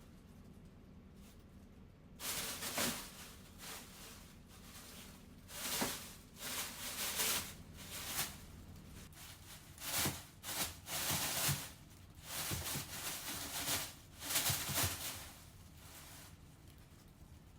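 Plastic bags rustling and crinkling in irregular bursts as kittens pounce and scramble in them. It starts about two seconds in and dies down near the end.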